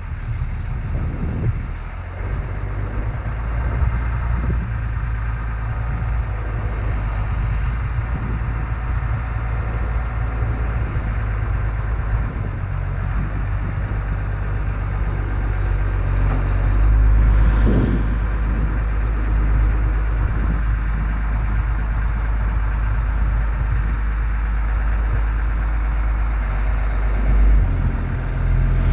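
John Deere 544G wheel loader's diesel engine running under load as it lifts and carries a compact track loader on its bucket. The engine gets louder and deeper a little past halfway.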